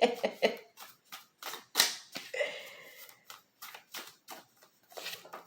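Tarot cards being shuffled and handled: a run of irregular sharp snaps and clicks.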